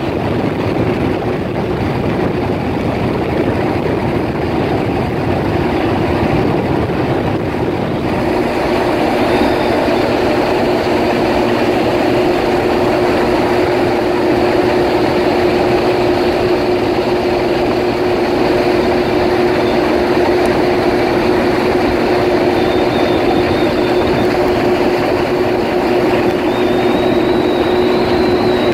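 Kawasaki personal watercraft running steadily under way: a constant engine and jet-pump drone over a rushing noise of water and wind. It picks up a little about eight seconds in.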